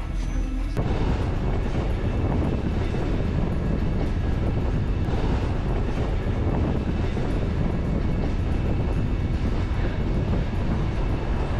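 A passenger train running along the track, heard from the side of a moving carriage: a steady, loud rumble of wheels on rail. A music track stops about a second in.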